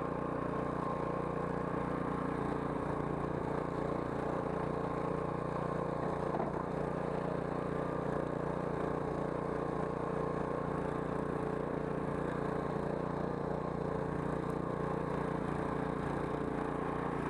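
Daewoo DAST 7565 petrol snowblower's engine running steadily at working speed while clearing snow.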